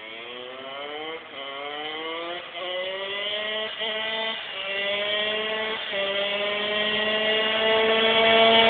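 Kawasaki KX65 single-cylinder two-stroke engine accelerating hard through the gears: the pitch climbs, drops at each upshift, then climbs again, about five times, and the engine grows steadily louder as the bike approaches.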